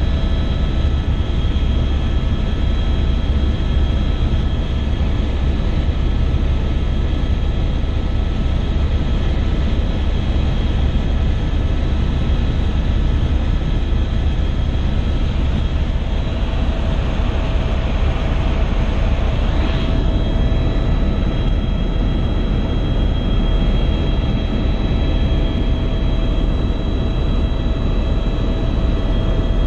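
Helicopter's turbine engine and main rotor heard from inside the cabin in cruise: a steady, heavy low drone with a constant high whine over it. About two-thirds through, a rushing hiss swells and ends in a quick rising sweep before the steady whine resumes.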